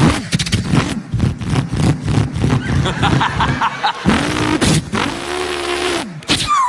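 A boy imitating a racing car engine with his voice: a fast stuttering rev, then drawn-out engine notes that rise and fall in pitch like gear changes.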